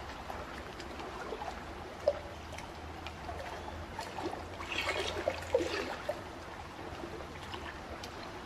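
Water trickling and splashing, a steady flow dotted with small drips and plops, busier and louder for a second or two midway.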